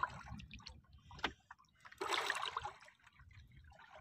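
Seawater lapping and splashing against the hull of a small outrigger boat. There is a sharp click a little over a second in and a louder splash about two seconds in.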